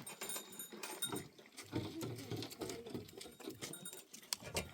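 Livestock moving about close by, a busy patter of small knocks and clicks.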